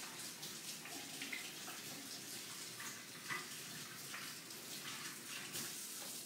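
Kitchen sink faucet running, its water splashing over hands being washed; the flow stops suddenly at the end as the tap is shut off.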